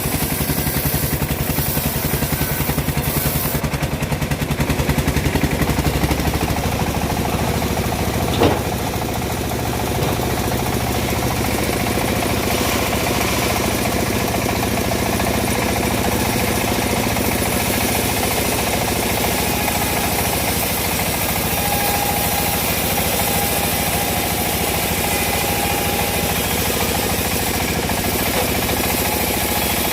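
Engine of a homemade bandsaw mill running steadily, with one sharp knock about eight seconds in.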